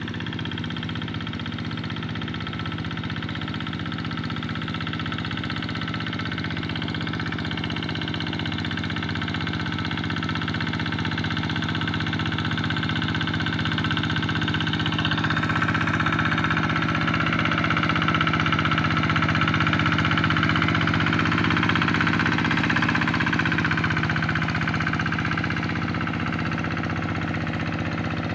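Tractor engine ploughing a rice paddy, running steadily, growing somewhat louder through the middle and easing off a little near the end.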